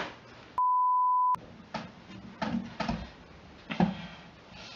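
An edited-in censor-style bleep: one steady high beep lasting under a second, with all other sound cut out while it plays. Afterwards, room noise with a few short knocks and handling sounds.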